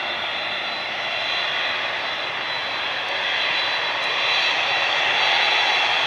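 General Electric CF6 turbofans of a Japan Airlines Boeing 767 running: a steady jet roar topped by a shrill, high-pitched whine, the 'kin-kin' sound typical of the CF6, growing a little louder about four seconds in.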